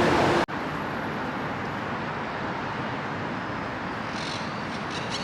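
Steady city traffic hum. About half a second in, a louder noise carrying a low steady tone cuts off abruptly, as at an edit, and the quieter traffic hum carries on.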